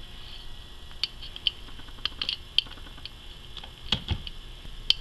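Scattered light clicks and taps from handling a Bosch 12-volt lithium-ion impact driver, with a duller knock about four seconds in as its bit is set on a screw head.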